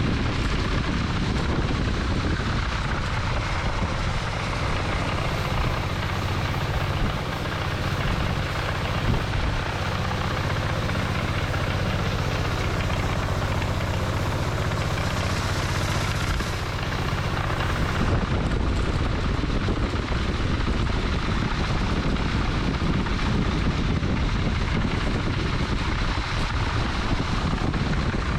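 Rice blower, a motorised winnowing fan for cleaning harvested rice, running steadily with a loud, even drone; the sound changes about 18 seconds in.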